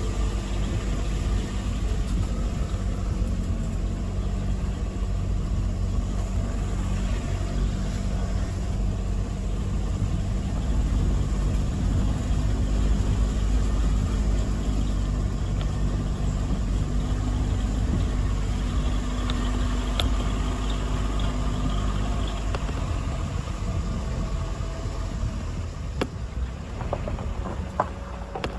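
Car driving slowly on a dirt track, heard from inside the cabin: a steady low engine hum with tyre rumble. A few sharp clicks or knocks near the end.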